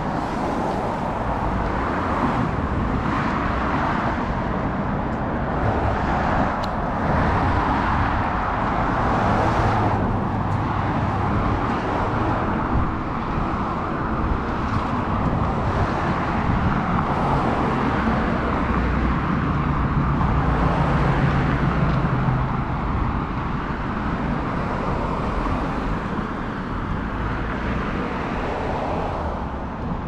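Traffic on a city street: cars passing one after another, their tyre and engine noise swelling and fading over a steady roadway hum.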